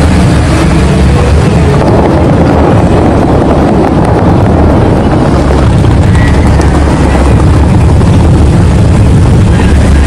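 Fountain water jets spraying high into the air in a loud, steady rushing noise.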